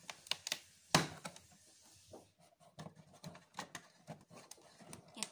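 Fingers pressing in and prying open the perforated cardboard door of an advent calendar: a run of sharp clicks and scratchy scrapes, the loudest about a second in.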